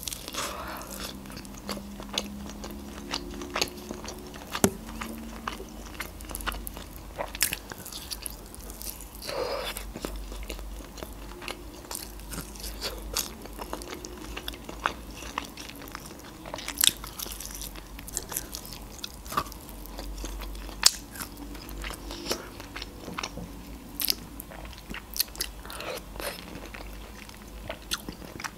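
Close-up eating sounds: biting and chewing meat off a piece of rotisserie chicken, with scattered sharp wet mouth clicks and smacks.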